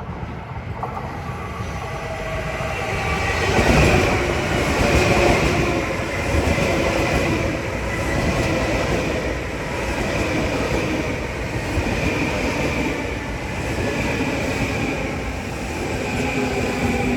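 Long Island Rail Road train passing, a steady loud rumble of wheels on rail, loudest about four seconds in.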